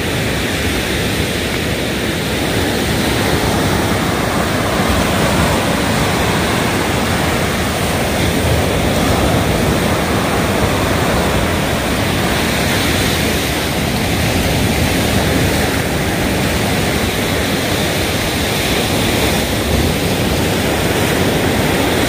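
Surf breaking along a sandy shore: a steady, unbroken rush of waves.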